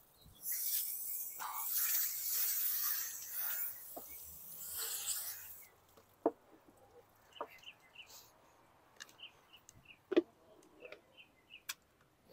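Garden hose spray nozzle spraying water onto a fish fillet on a plastic cutting board, a loud hiss that cuts off suddenly about five and a half seconds in. After it come a few scattered knocks on the board and small birds chirping.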